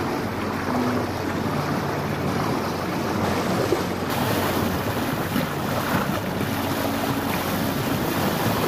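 Wind buffeting the microphone over water rushing along the hull of a yacht under way: a steady, dense hiss that gets brighter about four seconds in.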